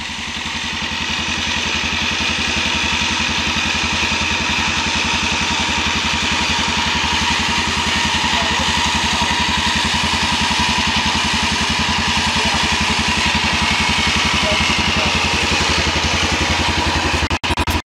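ATV engine idling steadily, with an electric winch whining over it as it reels in and tightens its cable. The sound swells over the first couple of seconds, then holds even, and cuts out briefly near the end.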